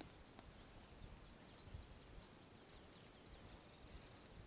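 Near silence over a faint low rumble, with a run of quick, high chirps from small birds that fades out after about three seconds.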